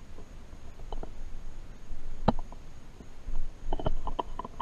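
Hand tools clicking and knocking against metal parts in a car's engine bay during disassembly: scattered clicks, one louder knock about two seconds in, and a quick run of clicks near the end.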